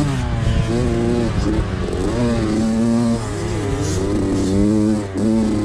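Motocross bike engine heard up close from the bike itself, revving up and down with the throttle through the turns, its pitch rising and falling several times, with a brief dip about five seconds in.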